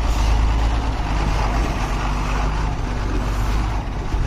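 A loaded diesel truck's engine running steadily under load at low speed, with the rumble and rattle of the truck moving over a rough dirt road.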